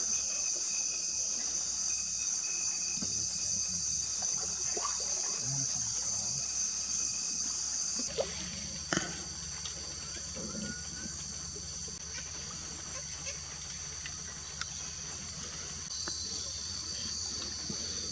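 Insect chorus in rainforest: a steady, high-pitched drone that drops a little in level about eight seconds in, with a few faint knocks.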